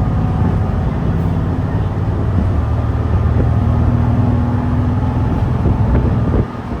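Hino Blue Ribbon City Hybrid bus's diesel engine pulling hard under load, heard from inside the cabin as a loud low drone. The engine note drops off suddenly near the end as the load comes off.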